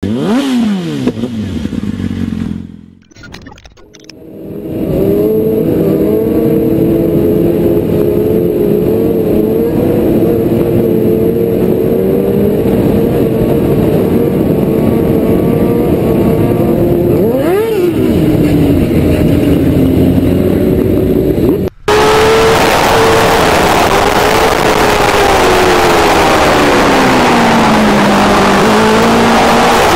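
Sport motorcycle engines running at speed, recorded from moving bikes: a steady engine note that wavers with the throttle, with a quick rise and fall in pitch a little past halfway. After a sudden cut it is louder and mixed with a rushing noise, and the engine pitch drops and then climbs again.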